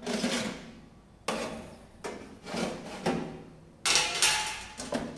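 Metal wire rack and tray being slid out of an air fryer oven's rails: a series of scrapes and knocks, about six in five seconds.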